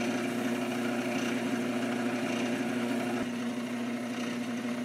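Wood lathe running at its slowest speed with a steady hum, while abrasive paper rubs against the spinning African blackwood handle with a soft sanding hiss. About three seconds in, part of the hum drops out and the sound gets slightly quieter.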